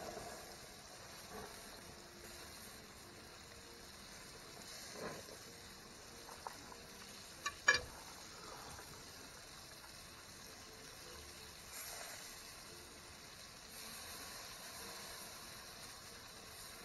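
Marinated skirt steaks sizzling faintly and steadily on a grill mat over a gas grill, with a few sharp clicks about halfway through.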